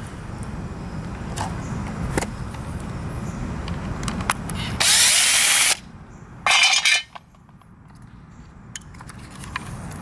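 Hands working the plastic electronics housing of an Ofo bike-share lock, pulling its parts out. About five seconds in there is a sudden loud scraping noise lasting under a second, and a shorter one a second and a half later, over a low rumble that dies away after the second.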